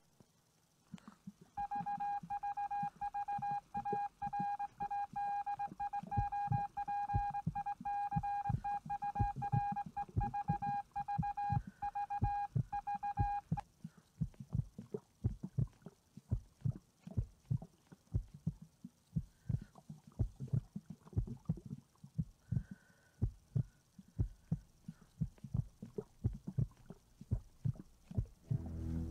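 A fast, steady run of low thumps like a heartbeat. For the first half a steady electronic tone with overtones sounds over it, then cuts off suddenly.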